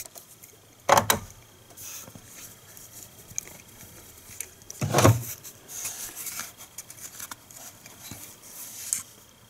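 A 3/8-inch-drive ratchet with an extension and a 10 mm bolt being worked and handled: small metallic clicks and rattles, with two louder knocks, about a second in and about five seconds in.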